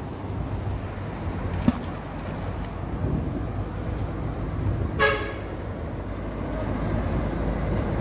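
A short single toot of a vehicle horn about five seconds in, over a steady low rumble of road traffic.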